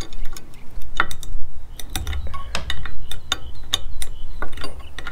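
Irregular small metallic clicks and ticks, several a second, as an L-shaped security key is turned and reset in a bolt head on a steel bed-rack bracket. A low steady rumble lies underneath.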